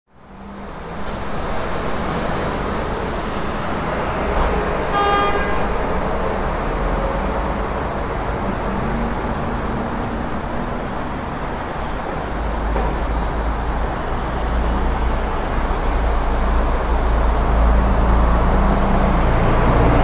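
Street traffic ambience: a steady wash of passing road traffic that fades in at the start, with one short car-horn toot about five seconds in. The low rumble of traffic grows heavier in the second half, with a few faint high chirps over it.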